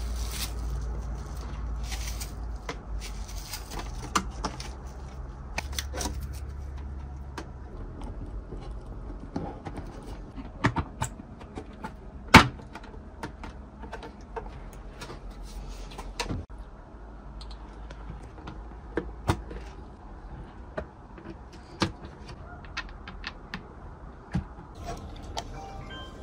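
Handling noise from a hard plastic 1:16 RC car body as its clear protective film is peeled off: scattered light clicks and taps, with one sharp click about halfway through.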